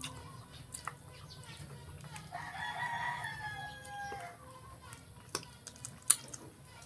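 A rooster crows once, one call of about two seconds that sags in pitch at the end. Around it come a few short sharp clicks, the sharpest about six seconds in.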